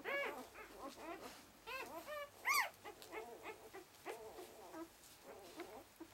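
Newborn puppies squeaking and whimpering: a string of short calls that each rise and fall in pitch, thickest in the first half, the loudest a sharp squeal about two and a half seconds in.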